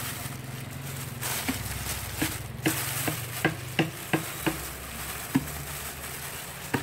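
Thin plastic bag rustling and crackling as it is gathered and pressed around a plant stem, with a run of sharp crackles at about three a second in the middle.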